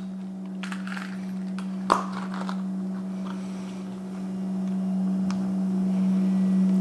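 Steady low hum at one pitch, growing a little louder in the second half, with one sharp click about two seconds in and a few faint clicks.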